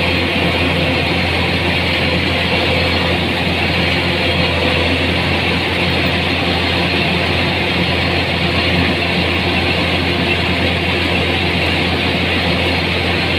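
A heavy engine running steadily at a constant speed, with a deep hum and a hissy upper layer.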